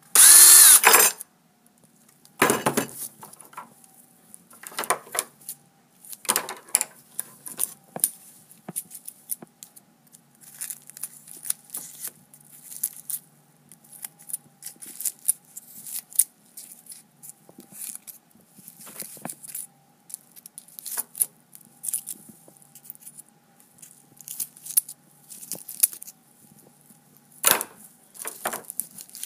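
Cordless drill whirring for about a second against aluminium foil, then repeated crinkling and crackling of the foil as a knife cuts and tears it open.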